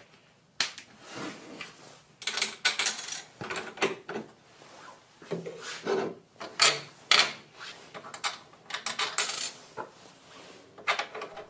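Irregular clinks, knocks and scrapes of hard parts being handled on a Bosch RA1181 router table, as its fence is set onto the table and its mounting bolts are fitted through the slots.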